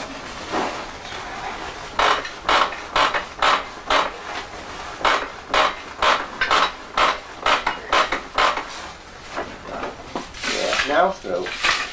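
Hand-worked weaving loom: a quick, uneven run of sharp wooden and metal clacks and knocks as its parts are handled and set, about two to three a second, easing off near the end.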